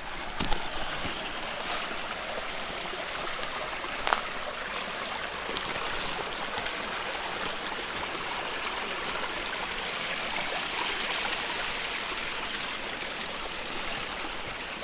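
Stream water rushing and splashing in a steady hiss, with a few sharp clicks in the first five seconds.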